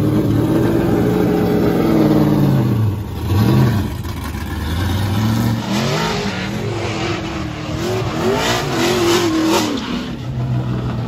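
Ford Mustang RTR drift car's engine revving hard, its pitch rising and falling as the car accelerates away. From about six seconds in it revs quickly up and down through a drift, over the hiss of the spinning rear tyres.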